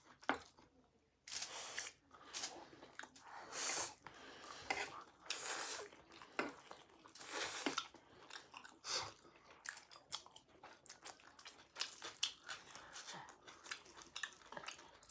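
Close-up chewing of a mouthful of sausage chowmein (fried noodles with sausage and onion), in irregular bites and chews.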